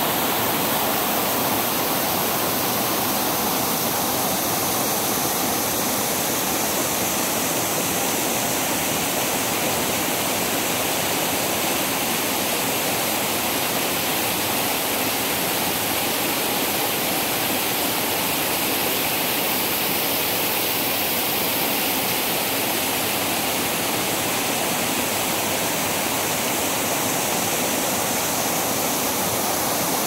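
Small waterfall spilling over a stone ledge into a rocky mountain stream: a steady, unbroken rush of falling and splashing water.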